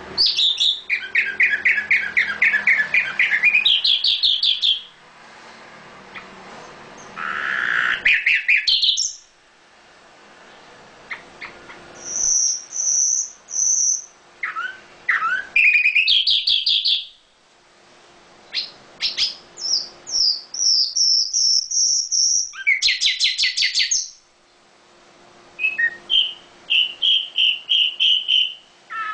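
A songbird singing loud phrases of rapid chirps and trills, each lasting a few seconds with short pauses between, including a run of clear high whistled notes near the middle and end.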